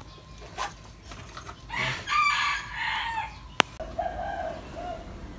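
Rooster crowing once, a call of about a second and a half starting about two seconds in, followed by a sharp click and a shorter, lower call.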